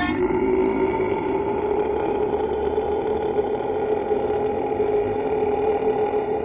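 Loud, steady buzzing drone held on one pitch, rough and rich in overtones.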